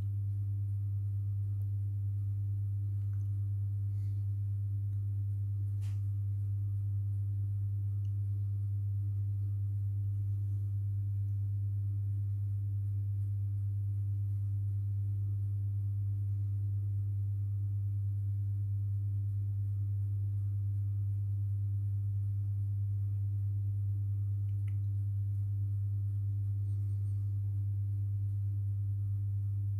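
A steady low electrical hum, one even tone with fainter overtones above it that never changes, with a couple of faint clicks a few seconds in.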